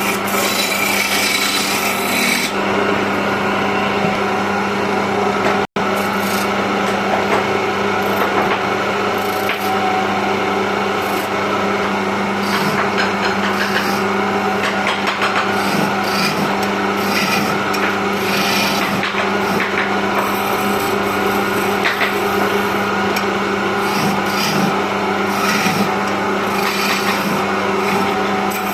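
Wood lathe running with a steady motor hum while a hand-held turning tool scrapes and cuts the spinning wooden stair baluster, giving a continuous rasping noise.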